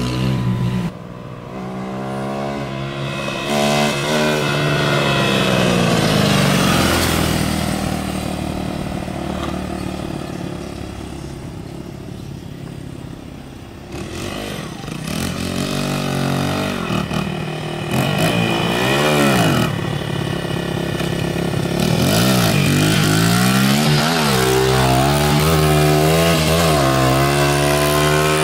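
Small dirt bike engine revving, its pitch climbing and dropping again and again as it accelerates and eases off, with a quieter, steadier stretch in the middle.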